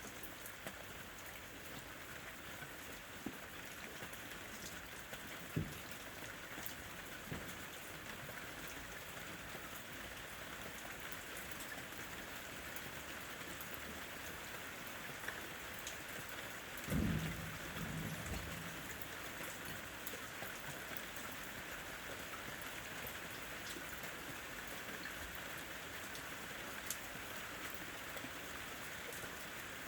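Steady rain falling, with scattered drop ticks, and one brief low rumble of thunder a little past halfway through.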